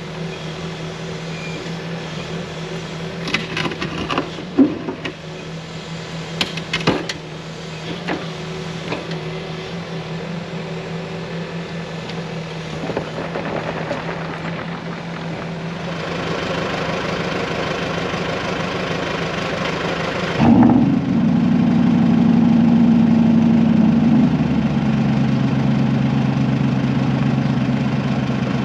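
Cat 308E mini excavator's diesel engine running, with several sharp metal clanks as the bucket is forced against a large boulder, and the engine working harder from about sixteen seconds in. About twenty seconds in the sound switches to another engine starting with a high fast idle that drops to a lower, steady idle about four seconds later.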